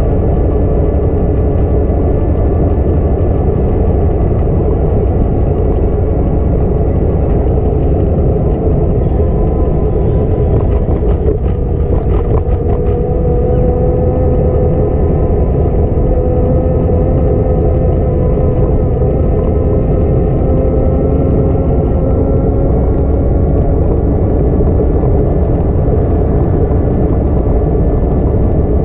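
Wind buffeting an action camera's microphone while riding, a steady low rumble. A steady hum of a few tones runs under it, and a short run of rattling clicks comes about eleven seconds in.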